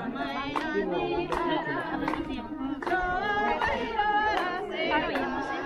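A group of women singing a devotional prayer song together without instruments, several voices at once, with sharp clicks every second or so.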